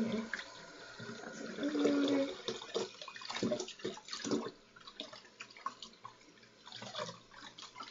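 Tap water running into a sink of soapy water while hands squeeze and slosh a soaked plush toy in it, with irregular splashes. A brief steady hum sounds about two seconds in.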